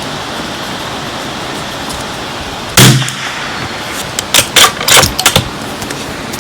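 A single shot from a Bergara BMR .22 LR bolt-action rifle about three seconds in, then a quick run of sharp metallic clicks as the bolt is worked to eject the case and chamber the next round. Steady wind noise on the microphone runs underneath.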